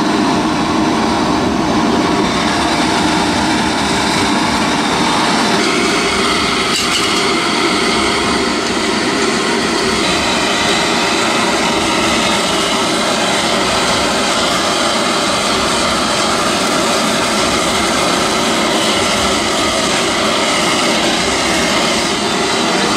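Gas forge burner running with its inducer blower: a loud, steady rushing noise. The tone shifts slightly a few seconds in.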